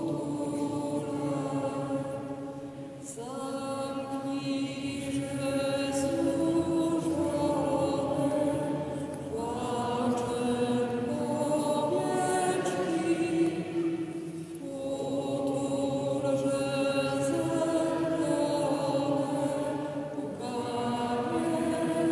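Voices singing a slow hymn in unison, in long held phrases of about five seconds with short breaks between them, as a congregation or church choir sings during the offertory of Mass.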